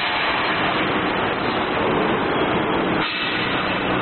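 Loud, steady workshop din, a dense rushing noise with no distinct strokes or tones, broken briefly about three seconds in.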